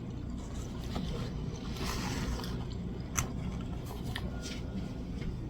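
Small handling sounds around a plate of food: a short scrape or rustle about two seconds in, then a sharp click a little after three seconds and a few faint ticks, over a low steady hum.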